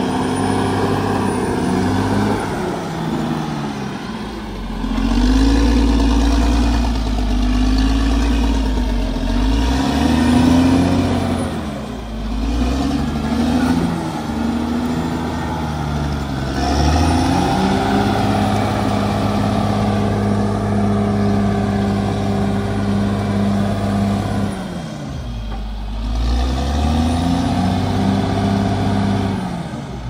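Heavy diesel engine of a Cat D6R XL bulldozer running hard, its revs repeatedly falling and climbing again about four times.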